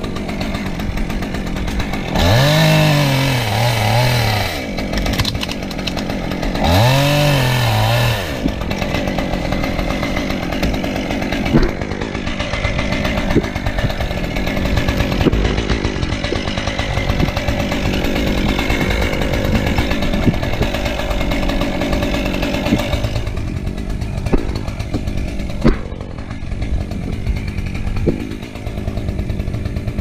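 Chainsaw revving up and back down twice in the first eight seconds, then running on steadily with small rises and falls in engine speed.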